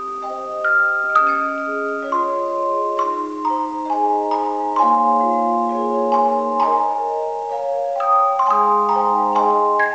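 Tone chimes playing a slow melody with chords: new notes are struck about every half second, and each rings on for a second or more, so several sound at once.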